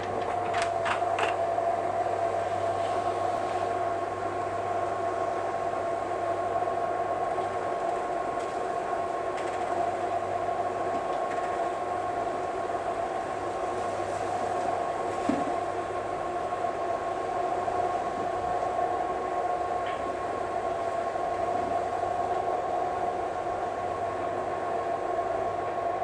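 Electric motor of an external zip roller screen running with a steady hum as it winds the screen fabric up, with a few light clicks in the first second or so.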